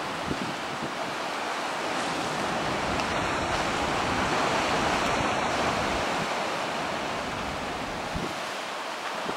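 Storm surf: rough sea breaking along a rocky shore and against a concrete-block breakwater in a continuous rush of noise. It swells about halfway through and eases near the end, with wind rumbling on the microphone.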